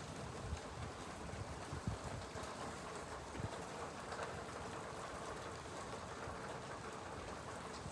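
Steady rain falling, with gusting wind and a few short low thumps of wind buffeting the microphone.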